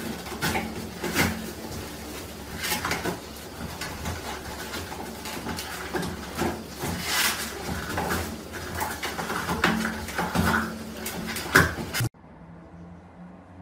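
A small pet scratching and pawing at a closed door, rattling the door and its knob in many irregular knocks and scrapes. The sound stops abruptly near the end and gives way to quieter room noise.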